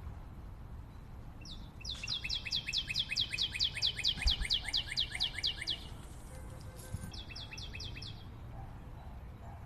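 A small bird singing a fast trill of repeated down-slurred notes, about seven a second, lasting nearly four seconds. A shorter burst of the same trill follows about two seconds later.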